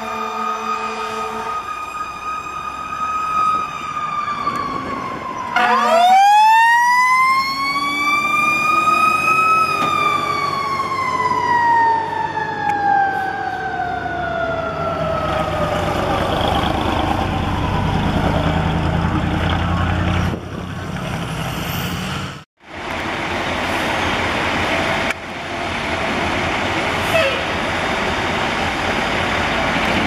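Fire trucks' mechanical sirens: one winds down, then another winds up over a few seconds and coasts slowly back down. Heavy diesel engine and road rumble of the passing apparatus follows through the second half.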